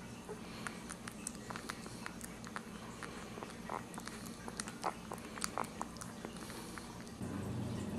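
Ten-day-old dachshund puppies suckling at their mother: faint, irregular wet clicks and smacks throughout. A low steady hum underneath grows louder near the end.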